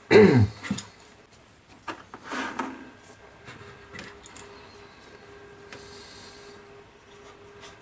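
A brief voice sound at the very start, then faint rustling, light knocks and rubbing as a plastic model tank hull is picked up from a cardboard-covered bench and a fine brush is worked over it. The knocks and rubbing sit over a faint steady hum.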